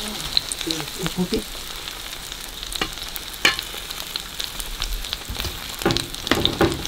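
Egg-dipped fish fillets sizzling in hot oil in a frying pan. A steady hiss runs under frequent sharp crackles and pops.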